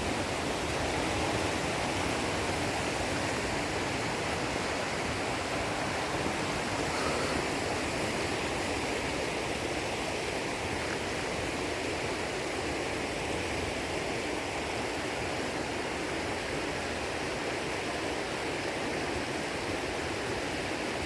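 Steady rush of fast-flowing mountain water, an even noise without breaks.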